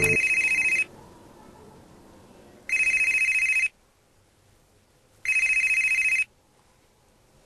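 Mobile phone ringing with an electronic warbling ring, three rings of about a second each, an incoming call.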